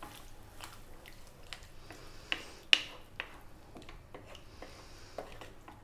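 A wooden spoon stirring a thick cream sauce of prawns and fish in a nonstick pan: soft squelches and scattered light clicks of the spoon against the pan, the sharpest nearly three seconds in.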